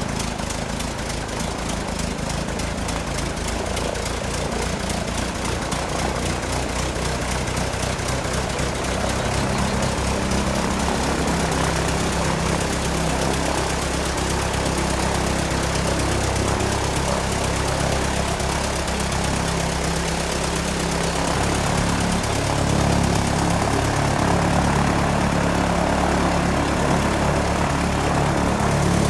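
Engine of a de Havilland Tiger Moth biplane running steadily at low power on the ground, propeller turning, growing a little louder about two-thirds of the way through.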